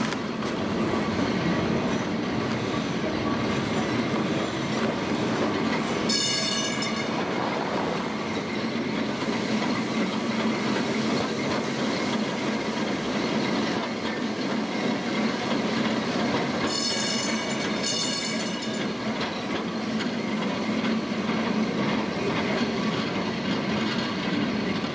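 1930s vintage tramcar running along its rails, heard from inside the car: a steady rumble and clatter of wheels and running gear. Brief high ringing sounds break in once about six seconds in and twice more around seventeen seconds in.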